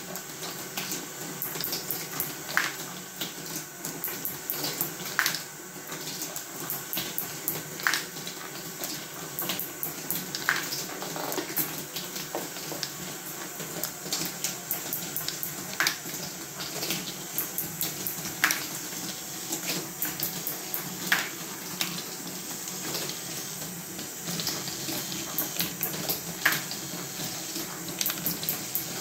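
Fischertechnik ball contraption running: its plastic gear train turns while steel balls roll and rattle along plastic tracks in a steady clatter. A sharp click comes about every two and a half seconds.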